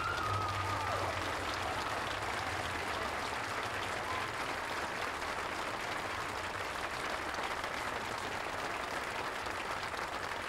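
Crowd applauding, a steady dense clapping that holds at an even level throughout.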